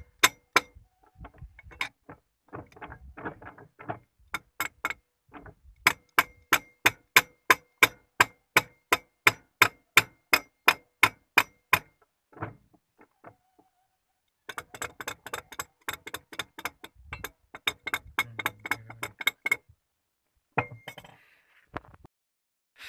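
A hammer striking metal in steady runs of blows, about three a second, with a short ring after each blow and pauses between the runs.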